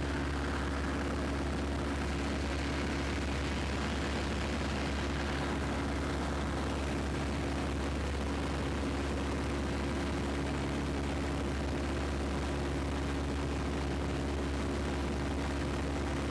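Piper PA-17 Vagabond's engine and propeller droning steadily in cruise flight, heard from inside the small cabin.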